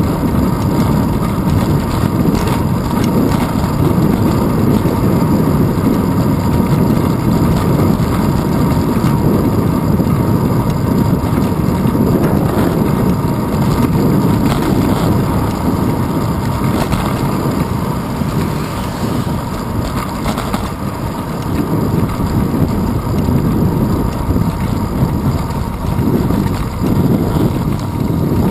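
Wind buffeting the microphone of a handlebar-mounted action camera on a moving bicycle: a loud, steady rumble.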